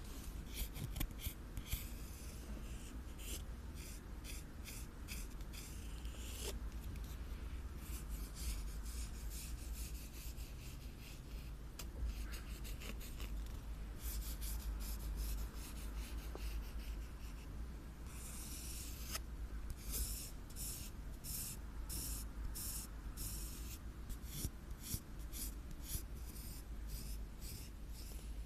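Close-miked ASMR scratching on an object: runs of quick, short scratching strokes, broken by a few longer continuous scrapes.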